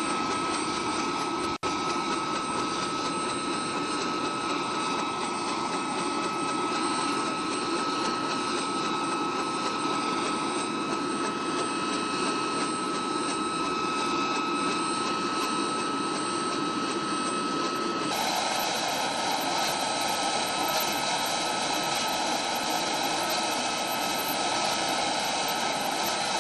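CH-47 Chinook tandem-rotor helicopter running on the ground with its rotors turning: a loud steady rush with a high steady whine. About two-thirds of the way through the sound changes abruptly and the whine drops out.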